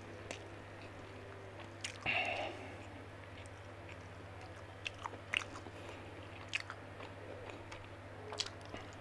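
A man eating rice and fried chicken with his hand: chewing with soft mouth clicks and small crunches, and a louder burst about two seconds in, over a steady low hum.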